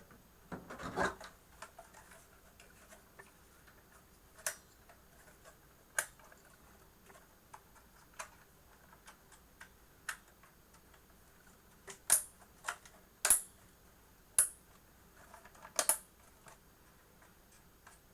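Scattered sharp plastic and metal clicks and taps from a CPU cooler and its fan being fitted by hand, a few spread out at first, then louder and closer together in the last third.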